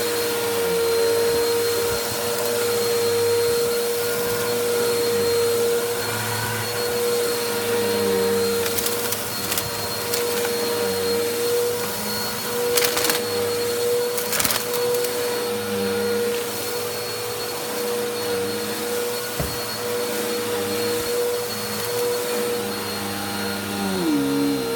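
Bissell vacuum cleaner running with a steady motor whine, with a few sharp ticks around the middle. The motor's pitch dips briefly near the end.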